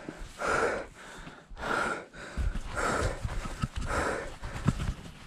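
A mountain biker breathing hard close to the microphone, about one loud breath a second, out of breath after a fast downhill run. A low rumble joins about halfway through.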